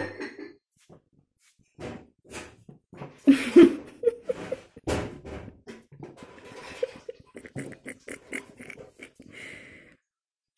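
A kitten making small animal noises and scuffling as it grabs at a piece of dough held out in a hand, with irregular taps and clicks throughout; the loudest stretch comes about a third of the way in.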